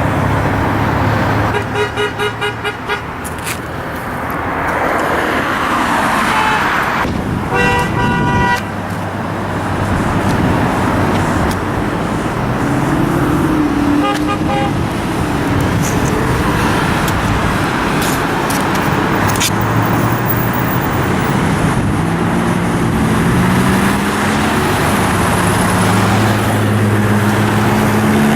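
Busy road traffic running steadily, with car horns honking: a run of short toots about two seconds in, a longer honk around eight seconds, and another short honk near fourteen seconds. An engine's pitch climbs in the last few seconds.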